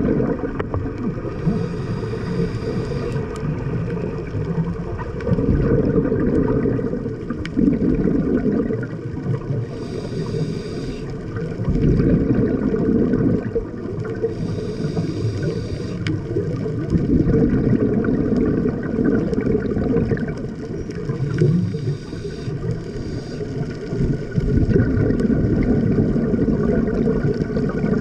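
Scuba regulator breathing heard underwater. A short hiss of inhalation comes four times, and each is followed by a long, low bubbling rumble as the exhaled air streams out.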